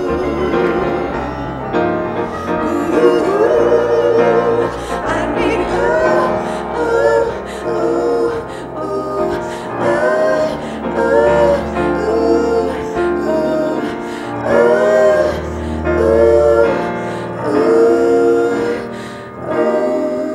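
Live female vocals with backing singers: wordless sung phrases with vibrato, rising and falling every second or two, over low, steady instrumental accompaniment.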